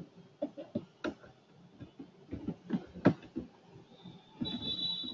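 Computer keyboard being typed on: irregular clicks of single keys, with a quicker run of presses in the middle. A faint, steady high-pitched tone comes in near the end.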